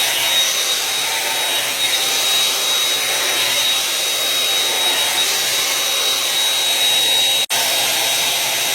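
Revlon hot-air dryer brush running: a loud, steady rush of air from its fan with a thin high whine over it, cutting out for a split second about seven and a half seconds in.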